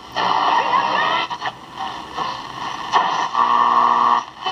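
The speaker of a General Electric C-403A AA5 tube radio puts out loud static hiss with wavering whistles as the dial is tuned across the AM band, turned up high. The hiss drops out briefly a few times. About three seconds in, a steady hum-like tone comes through for about a second.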